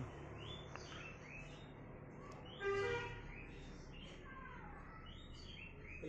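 Bird chirping: short, high chirps repeated about every half second, with one louder, fuller call about three seconds in and a short falling whistle a second later.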